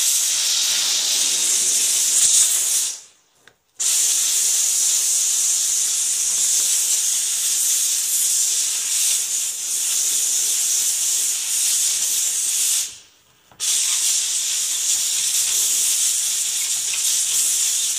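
Kärcher SC4 steam cleaner jetting steam through its narrow nozzle in a loud, steady hiss. The steam cuts off sharply twice for under a second, about three seconds in and again after about thirteen seconds, then resumes.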